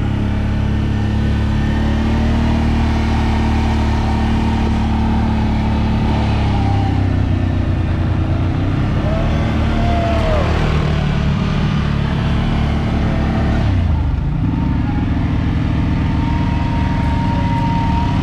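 CFMOTO CFORCE ATV engine running under way, its note rising and falling with the throttle, and changing abruptly about fourteen seconds in.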